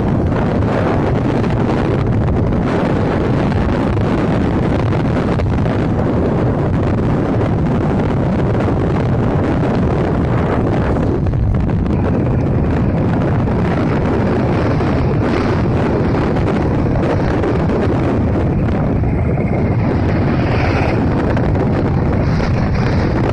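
Wind buffeting the microphone of a moving motorcycle, a steady loud rush, with the motorcycle running underneath it.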